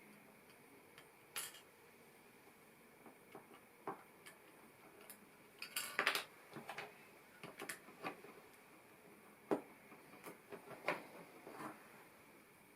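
Plastic LEGO pieces clicking and clattering as they are handled and pressed together, in scattered sharp clicks with a busier cluster about halfway through.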